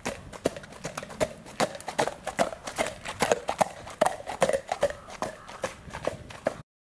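Hooves of a trotting sport horse striking a dirt lane in a steady, regular clip-clop, cutting off suddenly near the end.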